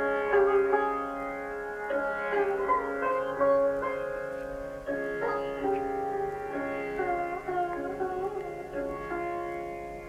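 Instrumental music played back through a Cary Audio 2A3 valve amplifier and loudspeakers: a melodic line of separate notes, some bending in pitch, over a held drone.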